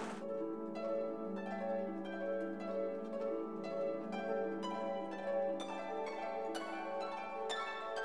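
Background music of light plucked-string notes, several a second, over a held low note; the outdoor field sound cuts out right at the start.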